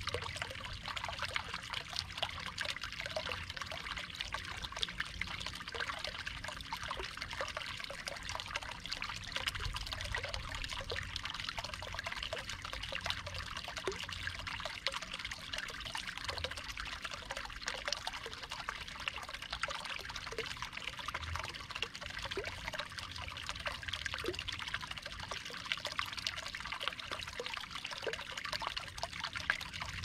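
Water trickling and splashing steadily into a garden pond from a small rock waterfall, a continuous patter with many small droplet ticks.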